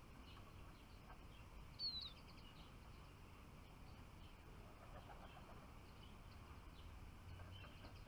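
Faint, scattered chirps of small songbirds, with one louder, quick descending call about two seconds in.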